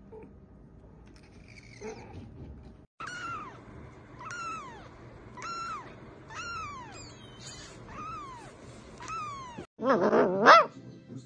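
Ginger kitten mewing over and over, a string of high mews about one a second, each falling away at its end. Near the end, a puppy gives a louder, lower burst of whining cries.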